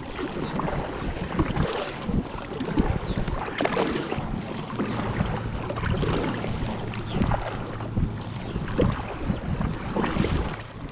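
Double-bladed kayak paddle dipping and splashing into lake water, stroke after stroke, with wind on the microphone.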